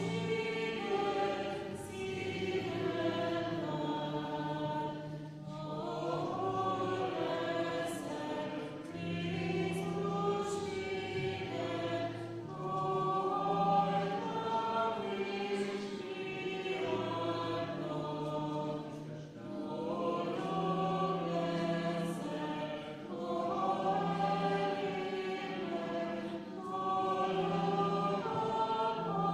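A group of voices singing a church hymn together in phrases of about seven seconds, with short breaks between phrases and steady held low notes underneath.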